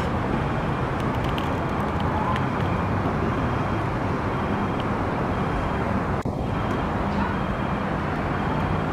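Steady outdoor background rumble, heaviest in the low end, with a brief dip about six seconds in.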